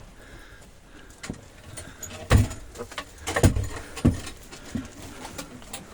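A few irregular heavy thumps and knocks, the loudest about two seconds in, with two more over the following two seconds, over low background noise.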